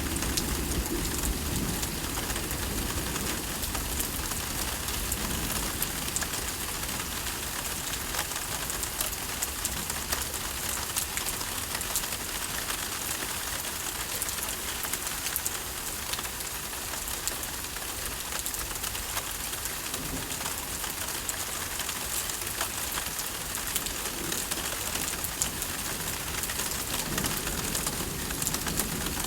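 Steady heavy rain from a thunderstorm, a dense hiss of drops hitting surfaces. A low rumble, likely distant thunder, fades out in the first few seconds and returns near the end.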